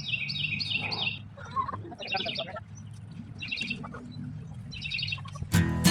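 A wild songbird singing short phrases of rapid, high chirping notes about every second and a half, over a low steady hum. Strummed acoustic guitar music starts near the end.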